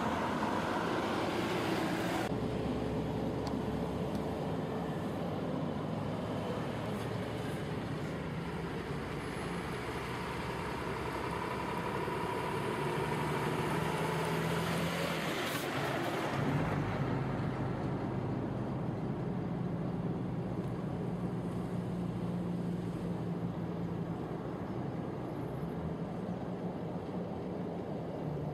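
Heavy diesel truck engines running steadily, with a low engine hum throughout. The sound changes abruptly about two seconds in and again a little past halfway, just after a brief hiss.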